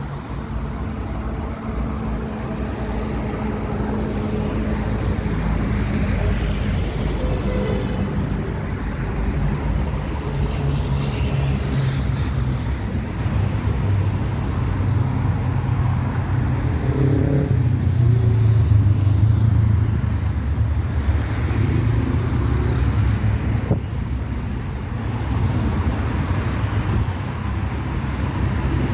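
Road traffic on a city avenue: cars and motorcycles passing, with a steady rush of engine hum and tyre noise that swells to its loudest a little past the middle.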